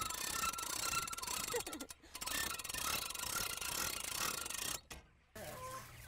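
Dense mechanical rattling with many rapid clicks, breaking off briefly about two seconds in and stopping near five seconds.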